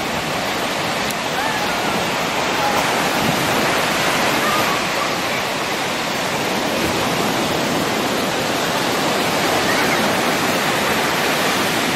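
Surf breaking on a sandy beach: a steady rush of waves.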